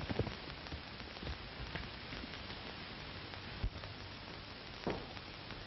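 Steady hiss of an old optical film soundtrack. The last few galloping hoofbeats at the very start, then a single dull knock a little past halfway and a brief louder sound near the end.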